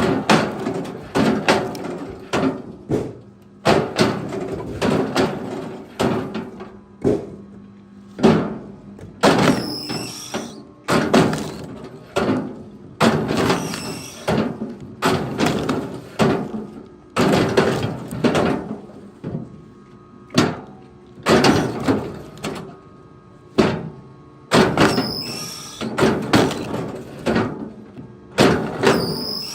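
Firewood being worked by hand: a long series of hard wooden knocks, roughly one a second, each with a short ringing tail.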